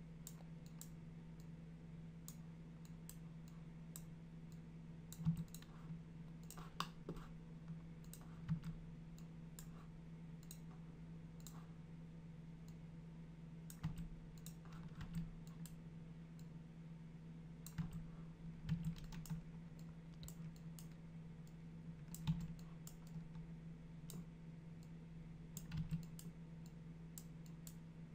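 Irregular computer mouse and keyboard clicks, single or in short clusters every second or few, over a steady low hum.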